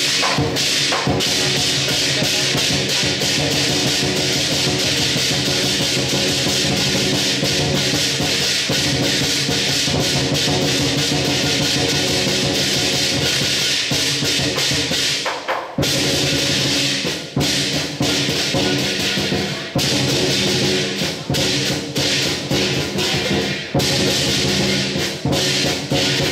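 Lion dance percussion: a big drum beaten fast with clashing cymbals and gong, loud and continuous. About 15 s in it breaks off briefly, then goes on in a choppier, more broken rhythm.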